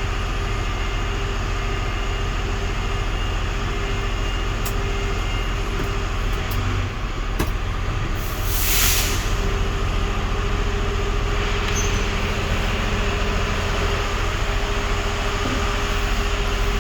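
Mega Truck diesel engine running steadily with a low drone, with a short hiss about nine seconds in and a few faint clicks.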